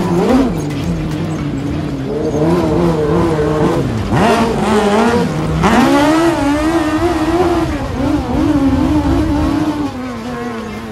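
Sand rail's inline-four motorcycle engine revving hard under load in loose sand, its pitch wavering up and down with the throttle. About four seconds in the revs drop away, then climb again sharply a second and a half later.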